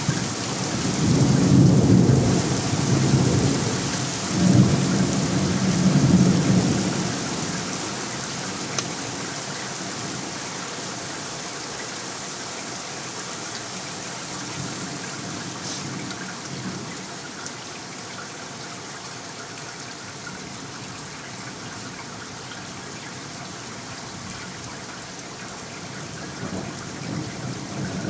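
Rain falling steadily, with a long rolling rumble of thunder that swells twice in the first several seconds and fades away; another rumble begins near the end.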